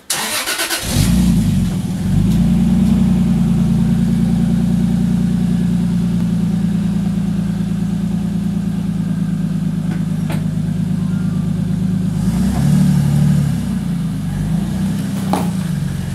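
Toyota Supra JZA80's 2JZ straight-six running at a steady idle, with a short rise in revs about twelve seconds in and a couple of sharp clicks.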